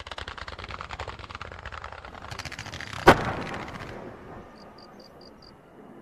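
Fireworks display firing a rapid volley of low-level comets and shells: a dense string of quick pops, one loud bang about three seconds in, then a fading rumble.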